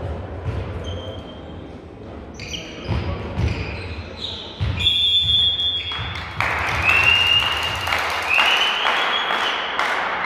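Indoor volleyball game: sharp knocks of ball contacts and short squeaks during play, then a shrill whistle blast about halfway through. From about two-thirds of the way in, a loud steady rushing noise takes over.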